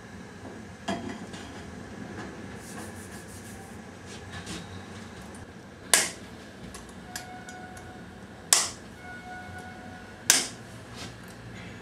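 Sharp clicks and clunks from a cylindrical camera housing being assembled by hand, its lid pressed on and its catches and cable fitting worked: four loud knocks a few seconds apart with lighter ticks between, over a low steady room hum.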